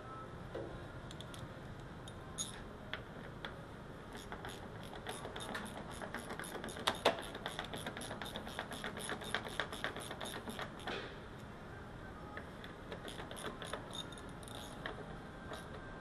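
Rapid clicking of a hand ratchet driving in the screws of a van's door latch, in quick runs that are densest from about four to eleven seconds in.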